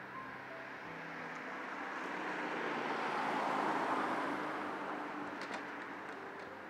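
A car passing by on the street, its road noise swelling to a peak about halfway through and then fading away.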